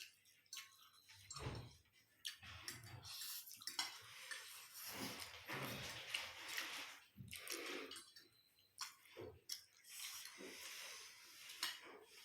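Quiet eating sounds: utensils clicking against dishes, with wet chewing and slurping of noodles.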